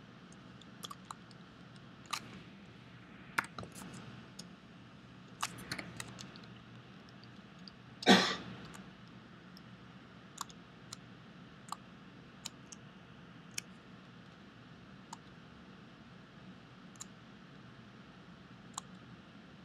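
Scattered computer mouse and keyboard clicks, sharp and irregular, with one louder, short noisy burst a little past eight seconds in.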